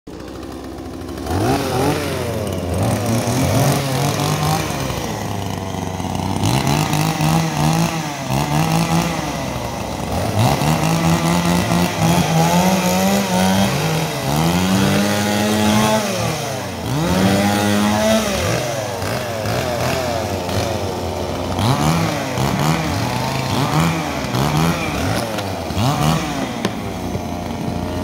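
Two-stroke gasoline chainsaw starting about a second in, then revved again and again with no load, its engine pitch rising and falling between idle and high revs.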